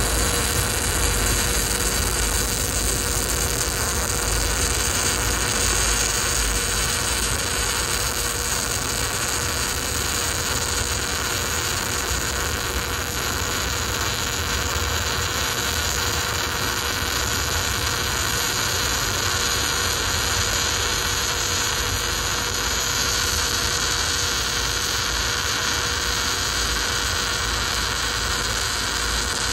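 MIG welding arc from a Miller Deltaweld 500 set to about 615 amps and 23.5 volts, running as one steady, unbroken hiss and buzz while a bead is laid.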